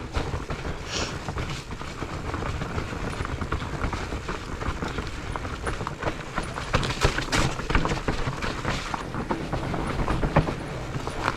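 Mountain bike rattling down a rough, rooty trail: steady tyre noise on dirt with many sharp knocks and clatters as it hits bumps, coming thickest in the second half.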